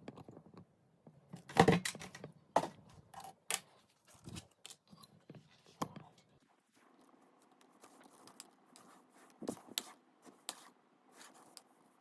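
K-pop album packaging and its contents being handled: scattered clicks, taps and paper-and-plastic rustles, with the loudest knock about two seconds in.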